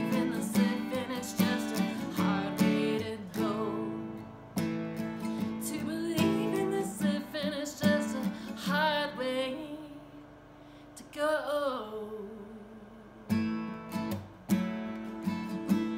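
Acoustic guitar strummed, with a woman singing over it. In the middle she holds two long notes with vibrato while the strumming drops away, and the strumming comes back strongly near the end.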